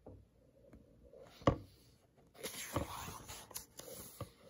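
Pages of a paper book being turned by hand: a sharp tap about one and a half seconds in, then a couple of seconds of paper rustling with small clicks.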